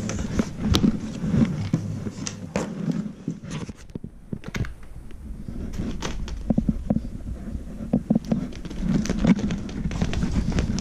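Irregular thumps, clicks and scratches of a kitten clawing and scrambling up the fabric of an old mattress, mixed with close handling noise on the microphone.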